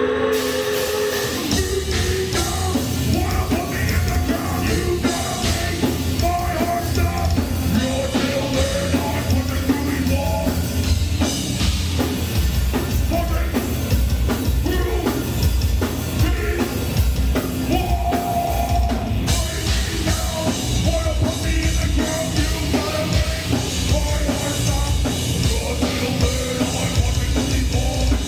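Heavy metal band playing live: electric guitars and a drum kit at full volume, with a vocalist singing.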